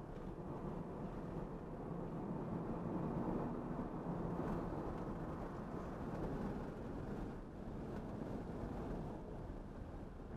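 Cabin noise inside a Tesla Model 3 Dual Motor Long Range driven hard at speed: steady tyre and road rumble with wind noise, and no engine sound. The car is accelerating, from about 55 to 70 mph.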